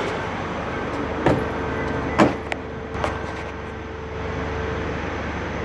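A vehicle's engine running with a steady low hum. Three sharp clicks or knocks sound about a second apart, the second the loudest.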